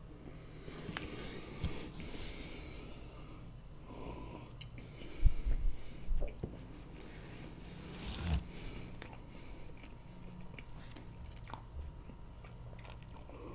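Close-miked chewing of soft gingerbread (pryaniki), with a few low thumps, the loudest about five seconds in. Near the end comes a sip from a coffee mug.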